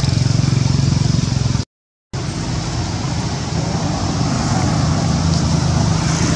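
A motor vehicle engine running steadily at idle with a low, even hum. The sound drops out to silence for a moment just under two seconds in, then the hum resumes.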